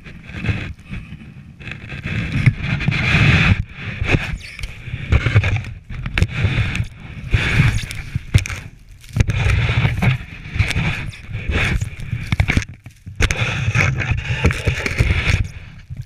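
Snow shovel scraping and pushing heavy snow and flinging it, heard through a camera mounted on the shovel itself, in uneven strokes with brief pauses, over a low rumble of wind and handling on the microphone.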